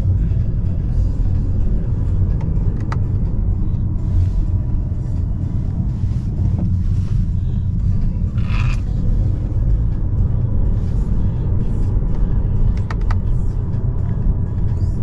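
Steady low rumble of a Honda Accord's engine and road noise heard inside the cabin while driving, with a few faint clicks and a brief higher-pitched sound near the middle.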